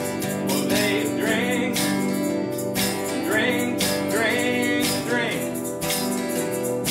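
Acoustic guitar strummed with a man singing over it.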